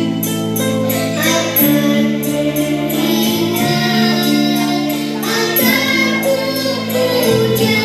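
Upbeat song for a group exercise routine: a sung melody over sustained instrumental notes and a steady beat.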